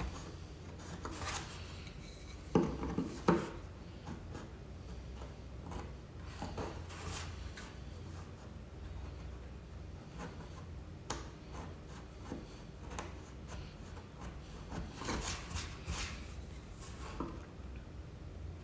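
Chisel scraping old dried glue out of a wooden door joint in short, irregular strokes, with two sharp knocks of the tool against the wood about two and a half and three seconds in.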